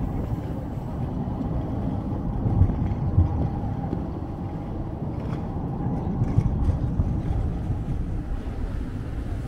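Articulated city tram passing close by through a curve: a steady low rumble with a faint high tone held over it.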